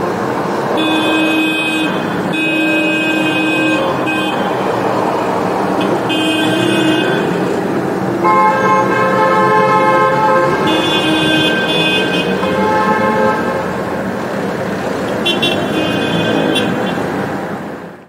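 Car horns honking again and again, each honk lasting one to two seconds and one held about two and a half seconds, at a few different pitches, over steady traffic noise.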